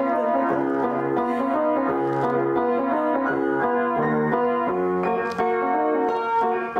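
An upright piano being played, a steady flow of chords and melody notes. Its owner says the piano is not well in tune.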